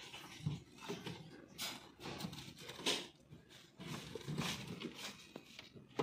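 Faint rustling and soft knocks of green chillies and limes being picked through by hand in a plastic vegetable basket.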